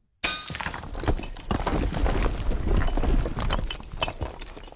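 Sound effect of a hammer striking a nail with a short metallic ring, followed at once by stone cracking and crumbling apart: a dense clatter of falling rubble over a deep rumble, dying away near the end.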